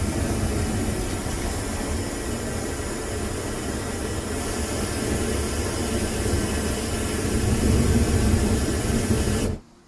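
Home-made propane furnace burner running, a steady rushing flame noise with a deep low rumble. It gets slightly louder near the end, then stops abruptly.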